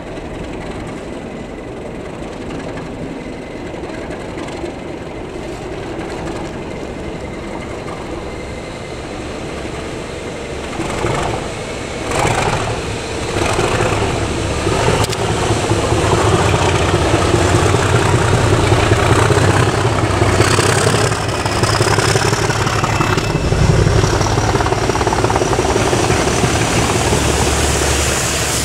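British Rail Class 37 diesel-electric locomotives, with English Electric V12 engines, working a rail-head treatment train past at close range with the engines under load. The engine sound swells about eleven seconds in as the train comes under, with some sharp clatter, then stays loud as the train goes by. A thin high whine rises near the end.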